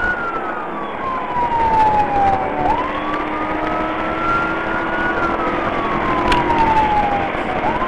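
Police car siren on a slow wail, its pitch sliding down and then sweeping back up in cycles of about five seconds, twice here, over steady engine and road noise from the moving patrol car. A single sharp click about six seconds in.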